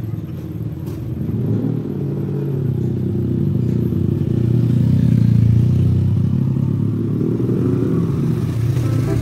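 A motor vehicle engine running, a steady low rumble that grows louder to a peak about halfway through and then eases off.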